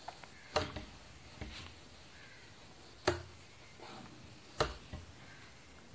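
Whiteboard duster being wiped across a whiteboard: faint rubbing with three sharp knocks and a few lighter ticks.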